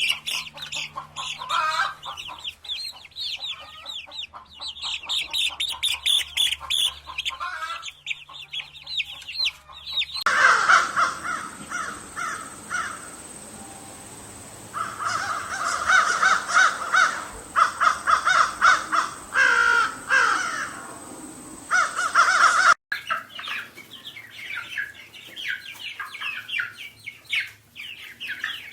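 Birds calling in three clips joined by abrupt cuts. Rapid, high chattering calls come first, then a run of louder, lower repeated calls with a few falling glides, then rapid high chattering again.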